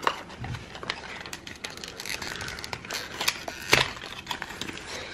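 Thin cardboard packaging being handled and unfolded, with crinkling and many scattered sharp clicks and taps, one louder click nearly four seconds in.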